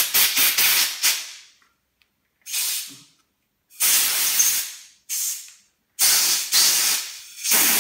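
Compressed-air blow gun hissing in repeated short blasts, about six with short pauses between, as the air is forced under a rubber handlebar grip so that it slides onto the bar.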